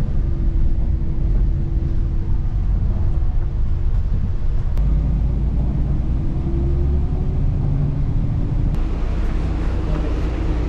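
Bus engine and drivetrain rumbling, heard from inside the cabin, with a faint whine that rises slightly about six seconds in. About nine seconds in the sound changes abruptly to a noisier mix.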